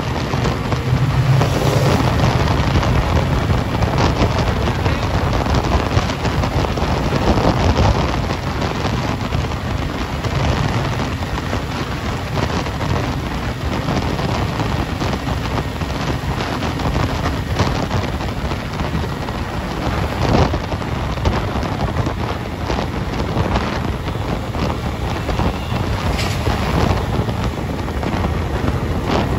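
Wind rushing over the microphone of a motorcycle moving at highway speed, with engine and tyre noise mixed in as a steady rush.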